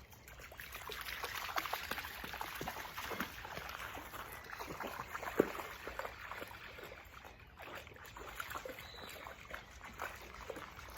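Water trickling and splashing in a stream, with many small irregular splashes and one sharper splash about five and a half seconds in.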